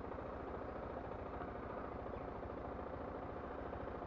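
Small-capacity motorcycle engine idling steadily while the bike stands still, with an even, rapid low pulse.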